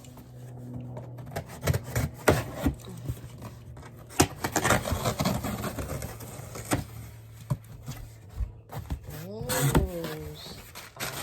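Cardboard boxes and plastic packaging being opened and handled: rustling, scraping and sharp knocks and taps, over a steady low hum. A short voice-like sound that rises and falls comes near the end.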